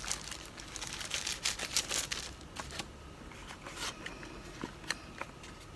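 Thin plastic packaging crinkling as a clear phone case in its plastic sleeve is handled, dense for about two and a half seconds, then a few scattered light clicks and taps as items in a cardboard phone box are handled.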